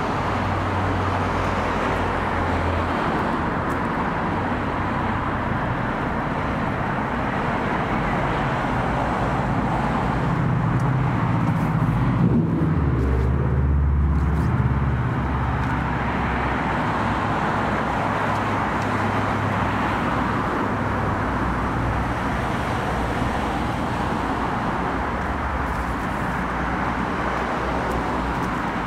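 Steady road traffic: cars passing on the road beside the path, tyre and engine noise, with one vehicle passing louder and with a low rumble about halfway through.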